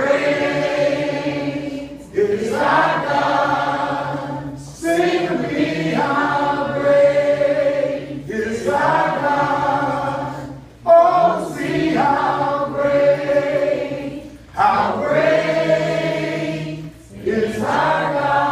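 A group of voices singing together a cappella, in phrases of two to four seconds with short breaks between them.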